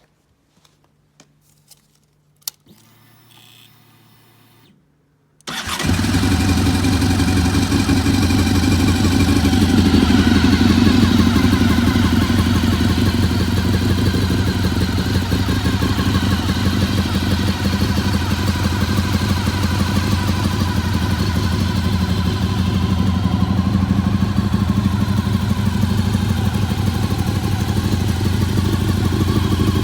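Honda RC45's V4 engine started for the first time after sitting for a while: a few faint clicks and a short faint hum, then about five seconds in the engine catches and runs steadily at idle.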